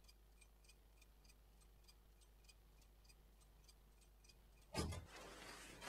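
Faint, even ticking, about three ticks a second, like a clock, over near silence. Near the end a sudden louder burst of noise breaks in.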